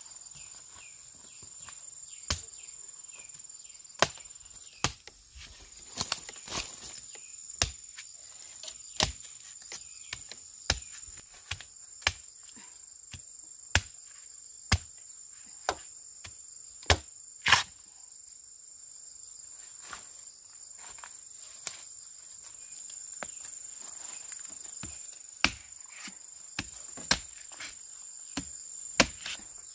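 Machete chopping into the base of a bamboo shoot, sharp single strokes spaced irregularly about a second apart. A steady high insect drone runs underneath.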